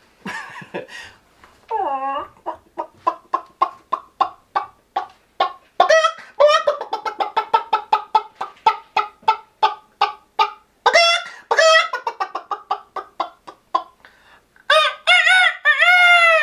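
A man imitating a chicken with his voice: a long run of quick clucks, about three or four a second, then after a short pause a few longer drawn-out calls that rise and fall near the end.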